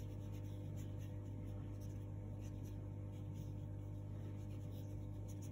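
Felt-tip pen scratching repeated short, quick strokes on paper, over a steady low hum.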